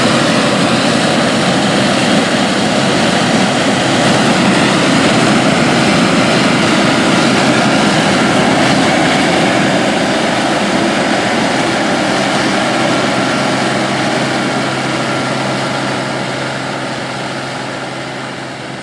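International 815 combine running while harvesting corn, a loud, steady drone of engine and threshing machinery, fading out over the last few seconds.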